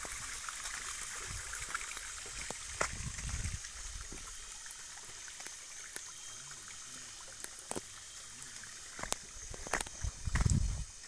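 Water of a small hillside waterfall running steadily as a high hiss, with scattered small clicks. There is a low muffled thump about three seconds in and a louder one near the end.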